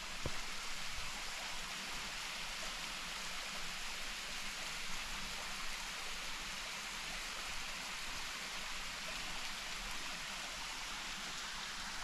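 Waterfall running steadily: an even rush of falling water with no pauses.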